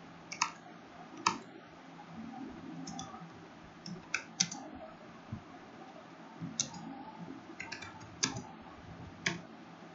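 Computer keyboard keys clicking in a dozen or so uneven keystrokes as text is typed.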